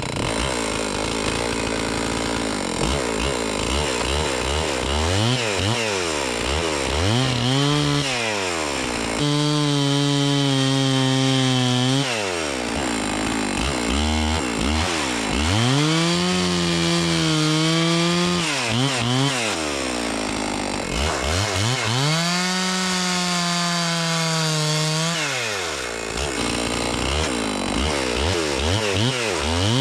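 Two-stroke chainsaw rip-cutting lengthwise along a log to free rough boards. The engine revs up and down over and over, holding full throttle for a few seconds at a time in the cut, then dropping back between passes.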